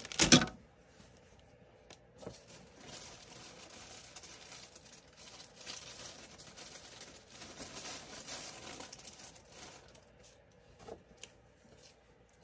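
Hands rummaging through craft supplies, with a short loud clatter at the start and then faint rustling and crinkling of plastic packaging.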